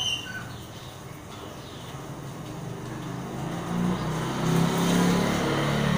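Steady rain falling on a lane, with a motorcycle engine approaching and growing louder from about halfway through.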